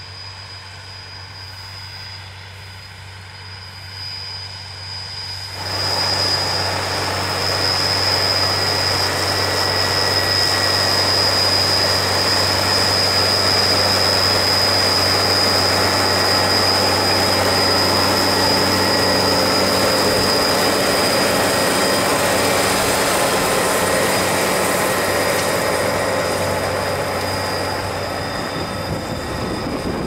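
Fendt 718 Vario tractor working a field with a front-mounted rotary harrow and a rear plough: a steady engine hum under a constant high whine. About five seconds in the sound turns much louder and rougher and stays that way.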